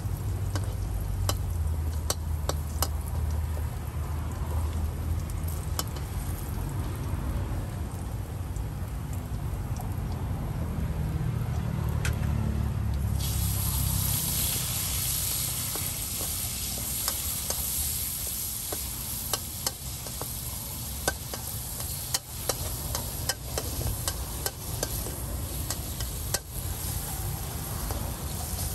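Seafood pad kra pow being stir-fried in a wok: a metal spatula clicks and scrapes against the pan over a low rumble. About halfway through, a loud sizzle breaks out suddenly, and the stirring clicks go on over it.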